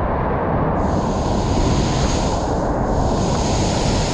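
Waterfall pouring into its plunge pool: a loud, steady rush of water, with a brighter hiss joining about a second in.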